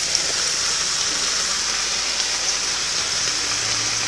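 Banana heart and sardines sizzling steadily in a frying pan.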